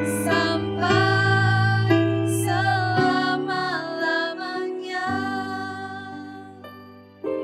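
Children's worship song sung by a female voice over keyboard accompaniment, ending on long held notes that fade away; a new chord sounds near the end.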